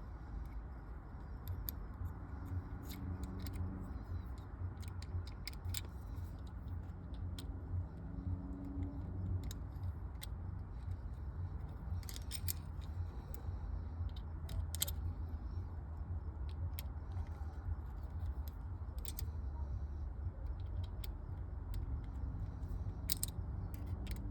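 Scattered light metallic clicks and clinks as the Petzl Micro Swivel and carabiner hardware is handled and its axle bolt screwed tight, over a steady low rumble.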